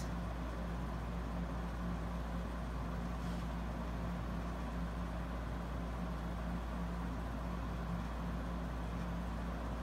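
A steady low hum with a faint, even background noise, with nothing starting or stopping.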